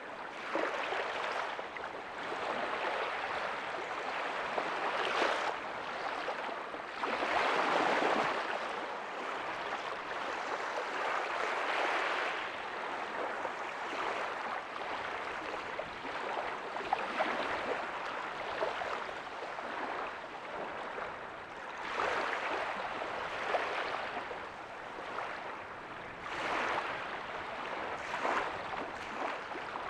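Small ocean waves breaking softly on a beach, the rush of water swelling and fading every few seconds, the biggest surge about seven to eight seconds in.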